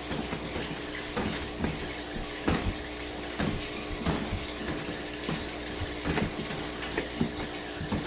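Irregular series of punch thuds, about one or two a second, over a steady rushing hiss.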